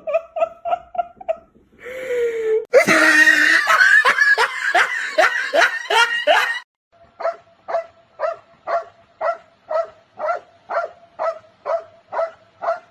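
High-pitched laughing in even, rapid pulses, about three to four a second. A short falling tone comes about two seconds in, then a few seconds of louder, fuller laughing before the even pulses return.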